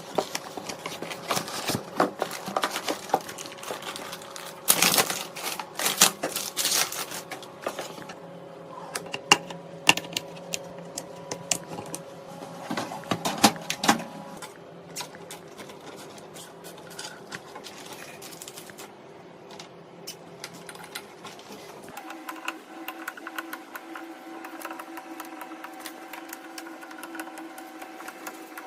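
Rapid clicks, taps and rattles of computer hardware being handled and fitted together, over a steady hum. The clicking is busiest in the first half. About two-thirds of the way through, the hum changes to a different, steadier tone.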